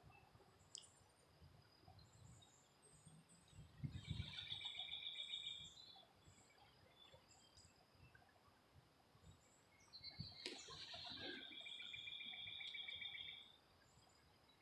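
A wild songbird's rapid trill, sung twice: a burst of quickly repeated notes about four seconds in, and a longer one about ten seconds in, with faint high chirps from other birds in between.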